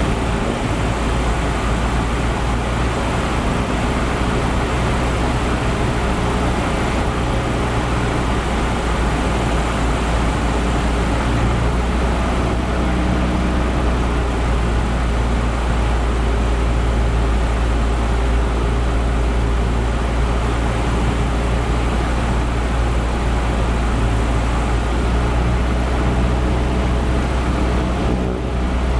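Cessna 172's four-cylinder piston engine and propeller running steadily, a constant drone with a strong low hum.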